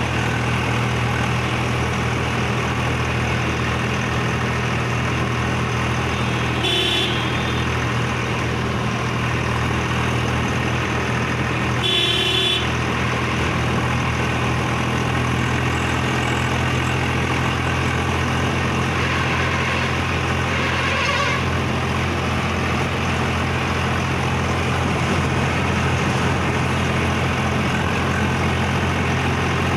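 Swaraj 735 XT tractor's three-cylinder diesel engine running steadily while pulling a trolley, heard from the driver's seat. A horn sounds briefly about 7 seconds in and again about 12 seconds in.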